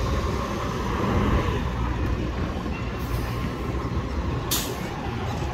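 Street traffic with heavy bus engines running as a city bus and a double-decker tour bus turn at low speed. A short hiss of air brakes releasing comes about four and a half seconds in.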